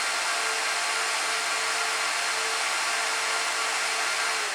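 Gigabyte R180-F34 1U server's cooling fans running at a steady high speed with a faint whine, then starting to spin down near the end as the server is powered off after hanging on a suspected bad RAM stick.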